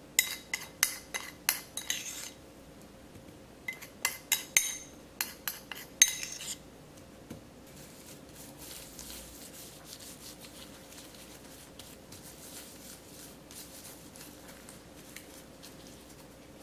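A metal spoon clinking and scraping against a ceramic bowl in two quick runs of taps over the first six or so seconds. After that comes the soft rustle of a plastic-gloved hand rubbing marinade into a slab of fried tofu.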